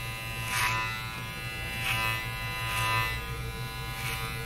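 Electric hair clippers buzzing steadily while cutting hair, with a brief louder rasp about four times as the blade passes through the hair.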